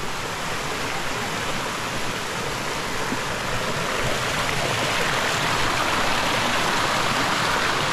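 Steady rushing of flowing water from a stream or cascade, an even hiss-like wash with no breaks.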